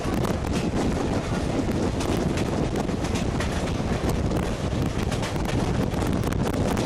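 Wind rushing and buffeting the microphone, over the low rumble of an Alaska Railroad passenger train running at speed.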